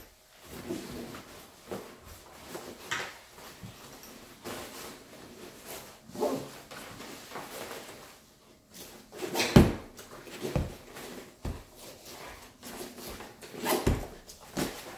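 Kriega R30 backpack being handled and cinched down: scattered knocks, clicks and rustles of its straps, buckles and fabric, the loudest knock about two-thirds of the way through and another near the end.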